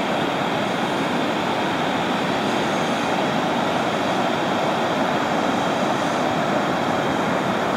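Pacific Ocean surf breaking: a steady, even rush of noise with no single wave standing out.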